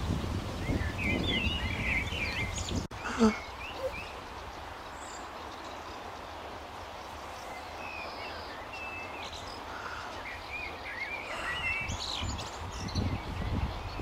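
Small birds chirping in quick, high, wavering bunches of calls over a low rumble. There is a brief louder sound just after three seconds.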